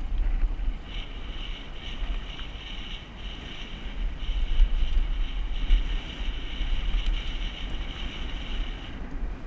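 Wind buffeting the microphone in a low rumble, with a steady high-pitched hiss that comes in about a second in and drops away near the end.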